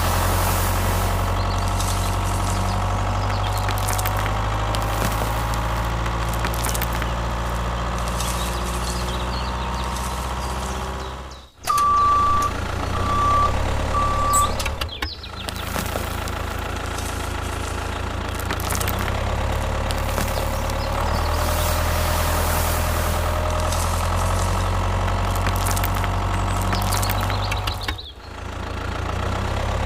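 Vehicle engine idling steadily, with three short beeps a little over a third of the way in, like a reversing alarm. The engine sound drops out abruptly twice, once just before the beeps and once near the end.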